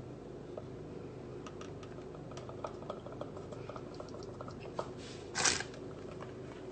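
Thick cake batter pouring from a plastic food processor bowl into a paper-lined cake tin: faint soft squishes and small ticks over a low steady hum, with one brief louder noise about five and a half seconds in.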